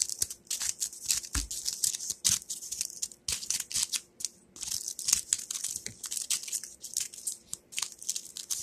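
Scissors cutting a folded sheet of paper: a rapid, irregular run of short crisp snips with paper rustling, broken by brief pauses.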